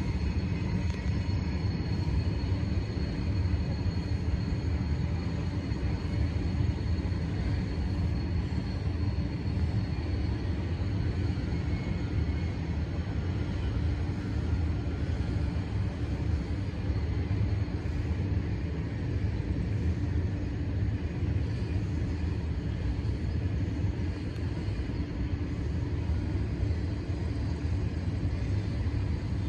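Norfolk Southern freight train rumbling steadily as its cars roll up the grade, with a faint steady high whine running through it.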